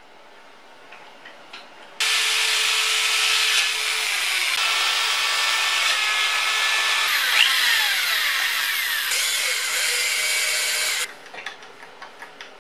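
Electric drill boring into aluminium, starting about two seconds in and running for about nine seconds before stopping abruptly. The bit's cutting noise carries whining tones, some sliding in pitch partway through. Light clicks and knocks of handling come before and after.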